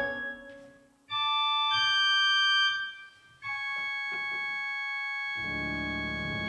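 Church organ playing: a held chord dies away, then two short high chords follow each other, and after a brief pause a new chord is held, with deep bass notes joining it about five seconds in.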